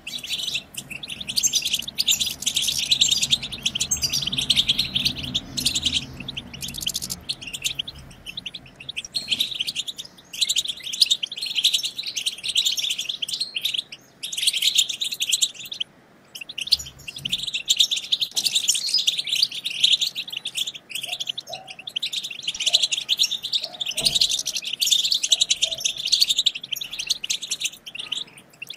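Several European goldfinches chattering and twittering together: a dense run of fast chirps and trills, broken by a couple of short lulls.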